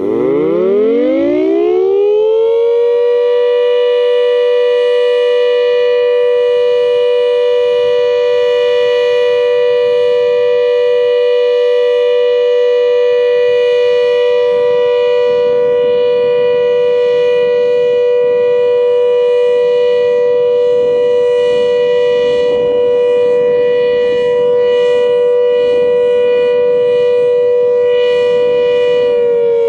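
3D-printed Klaxon GP12 siren winding up, its pitch rising over the first few seconds, then holding a steady, loud wail of two close tones. Near the end it begins to wind down.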